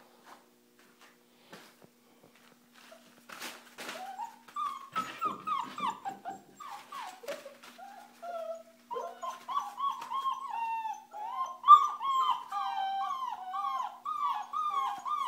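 Five-week-old German Shorthaired Pointer puppy whimpering: a string of short, high cries, each falling in pitch, starting about four seconds in and coming faster and almost without a break from about nine seconds on.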